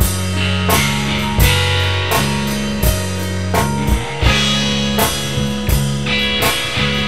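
Instrumental rock music: guitar and a sustained bass line over a drum kit keeping a steady, unhurried beat, with a strong drum hit about every 0.7 seconds.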